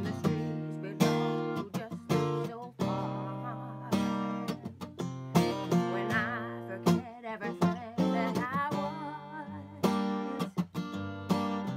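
Acoustic guitar strummed in slow chords, about one strum a second, with a woman singing over it; her held notes in the middle waver with vibrato.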